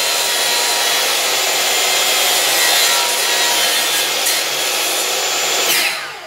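DeWalt DW715 chop saw running with its blade drawn across a notch in a laminate floor plank, rasping away the leftover slivers to smooth the cutout. Near the end the cut stops and the motor winds down.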